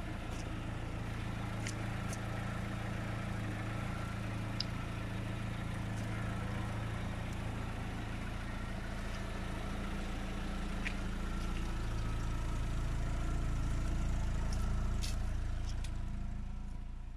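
Chevrolet Lacetti's engine idling steadily, growing slightly louder near the end, with a few faint clicks.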